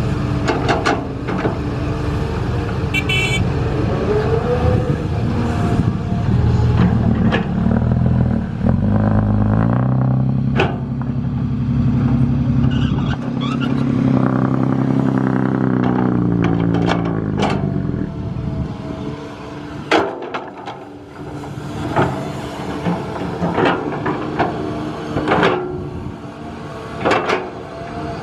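Heavy construction machine's engine running loud, revving up about a third of the way in and dropping back after the middle. Then it runs quieter under scattered sharp knocks and clanks.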